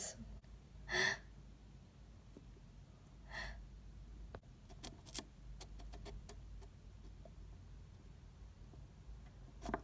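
Quiet room tone with two short breathy sounds, about one and three and a half seconds in, and a scatter of faint clicks and taps from plastic toy figures being handled, bunched around five seconds in and again near the end.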